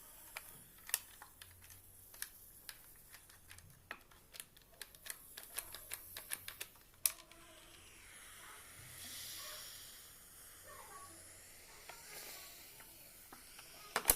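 A run of small, irregular clicks and ticks, a sharper click about seven seconds in, then a brief soft hiss.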